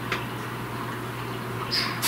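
Steady trickle of a small garden-pond waterfall over a constant low hum. A sharp click comes just after the start, and a brief high-pitched chirp near the end.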